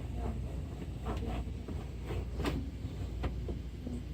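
Steady low hum with faint, scattered clicks and taps of hands handling the 3D printer's parts while reseating the filament.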